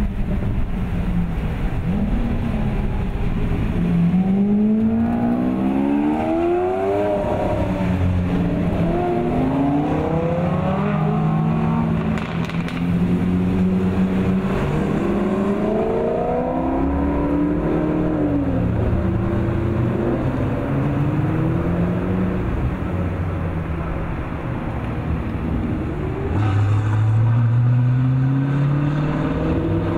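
A line of sports cars, among them a Lamborghini, a Ferrari, a Maserati and Audi R8s, driving past one after another, their engines revving and accelerating. The pitch rises and falls as each car goes by, and a deeper engine climbs in pitch near the end.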